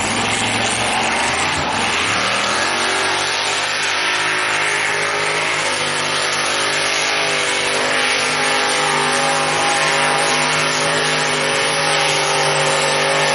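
Mini pulling tractor's racing engine revving up as it launches, then held flat out at steady high revs while it drags the weight-transfer sled down the track.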